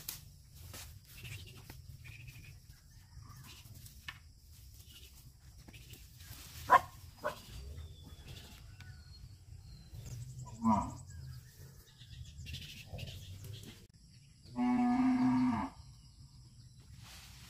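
Cattle mooing: one clear moo about a second long near the end. A single sharp click sounds earlier, and a short call sounds partway through.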